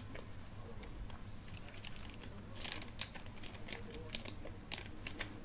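Computer keyboard being typed on: a scattered run of faint key clicks, most of them in the second half.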